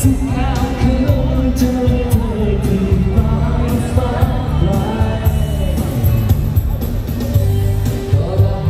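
Live band with a singer playing pop dance music over a strong bass, heard through the hall's PA.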